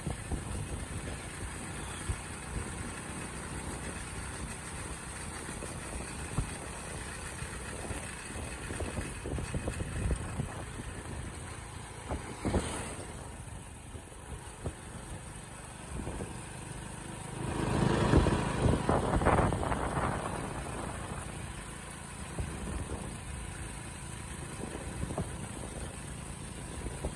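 Hero Splendor motorcycle's single-cylinder engine running steadily while being ridden, heard from the rider's seat with road and wind noise. About two thirds of the way through, a louder rush swells for roughly three seconds.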